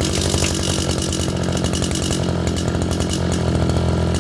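Zenoah Komatsu G3K brush cutter's 34cc two-stroke engine (36 mm bore), running steadily.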